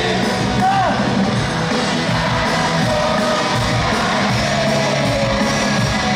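Live pop-rock band music in a large arena, with a man singing into a microphone over the band.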